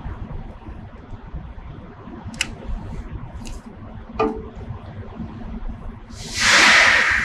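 Low steady hum of a CNC bridge saw standing under power, with a few light clicks, then a loud hiss about six seconds in that lasts about a second.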